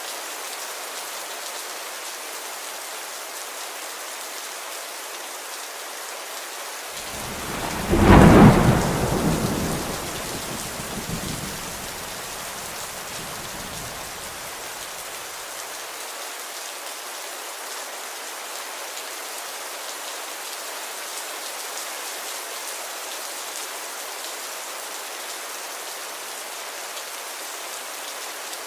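Steady rain with a clap of thunder about eight seconds in, which rumbles away over the next several seconds.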